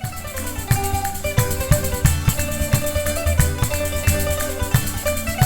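Instrumental background music with a steady beat: plucked strings over a rattling percussion.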